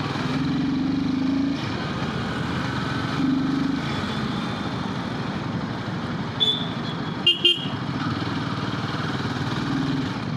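Royal Enfield Himalayan 450's single-cylinder engine running under way in traffic, with vehicle horns sounding: two held low horn notes in the first four seconds, then short high-pitched toots past the middle, two quick ones about seven seconds in.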